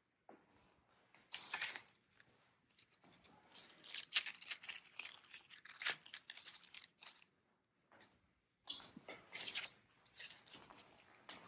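Artificial gold pine picks and garland rustling as the stems are pushed into the garland, in irregular short bursts with brief pauses.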